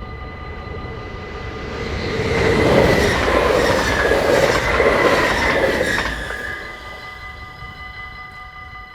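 A train passes over a level crossing, its wheels running on the rails. It is loud from about two to six seconds in and fades away after. The crossing's warning bell rings steadily throughout.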